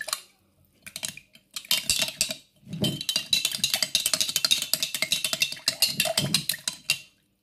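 Metal spoon stirring a powdered drink in a glass jar of water, clinking rapidly against the glass. After a short pause about a second in, the stirring picks up and runs for several seconds, then stops just before the end.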